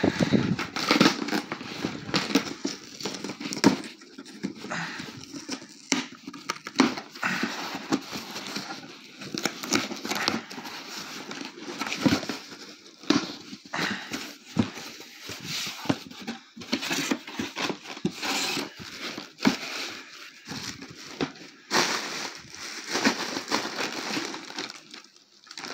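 A cardboard shipping box being handled and opened: continuous irregular rustling, scraping and crinkling of cardboard and packing, with scattered small knocks.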